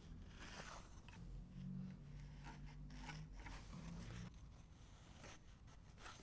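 Faint pencil scratching as a line is drawn around the foot of a wooden chair leg, with the wooden marking block scraped across a concrete floor in a few short strokes.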